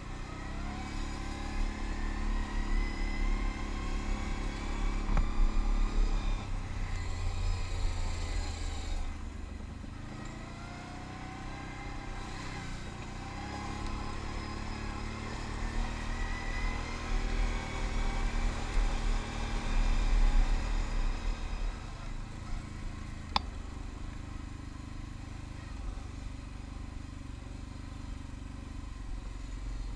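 ATV engine running while riding a rough gravel trail, rising in pitch several times as it speeds up and easing back in between. A single sharp click comes about two-thirds of the way through.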